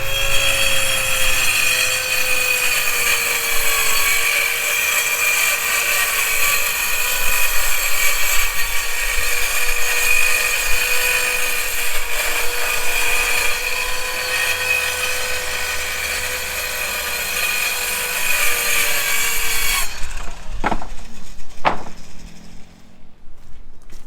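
A power saw cutting through wood, running steadily with a loud whine, then shutting off suddenly about 20 seconds in. Two sharp knocks follow about a second apart.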